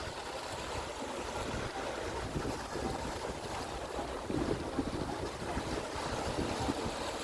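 Wind buffeting the microphone over the steady wash of the sea, with uneven low gusts.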